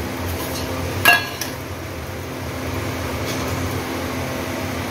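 A single sharp metallic clink of stainless steel kitchenware, ringing briefly, about a second in, with a few lighter taps around it over a steady background hum.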